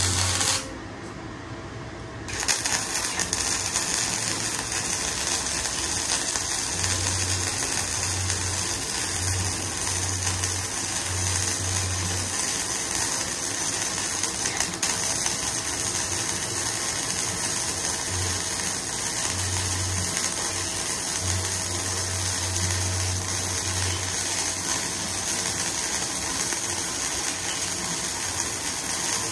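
Gasless flux-core MIG welder (ZARU MIG-300S) arc crackling and sizzling as it welds thin box-section steel at its lowest amperage setting. A short burst comes first, then a pause of about two seconds, then a steady crackling weld bead that runs on.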